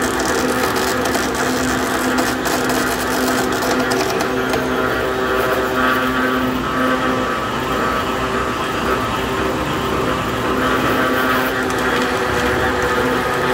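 Tyre bead removal machine running under load: its gear-driven ribbed rollers turn and pull a tyre through with a steady mechanical hum carrying a few steady tones. Rapid clicking runs through the first four seconds or so.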